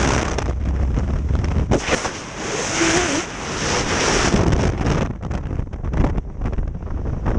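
Freefall wind rushing and buffeting the camera's microphone during a tandem skydive. About five seconds in, the rush turns choppier as the main parachute opens.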